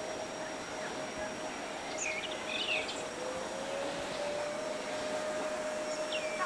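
Steady ambient hiss with a held hum-like tone, a second tone gliding up to meet it midway, and a short run of quick bird-like chirps about two seconds in.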